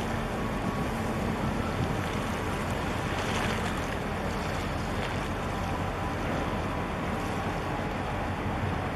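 Boat under way on choppy water: water rushing and splashing against the hull over a steady low rumble, with wind on the microphone. The rush of water swells briefly about three seconds in.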